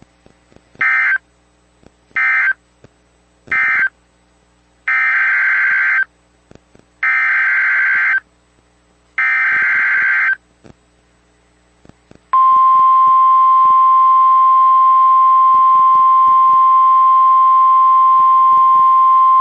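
NOAA Weather Radio EAS signalling. First come three short SAME data bursts, the end-of-message code closing the previous warning. Then come three longer SAME header bursts announcing a new tornado warning, and about twelve seconds in the steady single-pitch weather radio warning alarm tone starts and holds.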